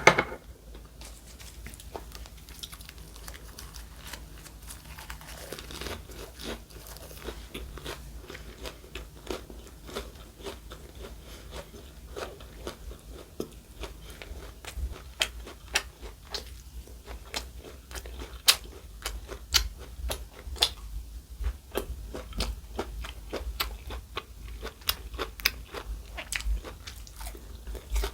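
Close-miked chewing and crunching of food, a steady run of small crisp, wet clicks from the mouth.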